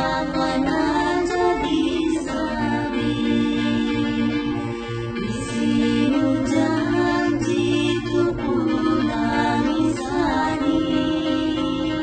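Music with several voices singing, most likely a soundtrack laid over the footage.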